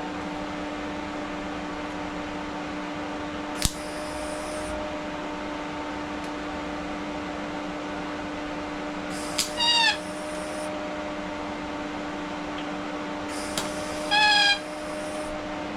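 TIG welder striking short arcs to tack steel box section: a click and about a second of hissing arc near 4 s, then two more tacks near 10 s and 14 s with a sharp chirping whine, over a steady electrical hum.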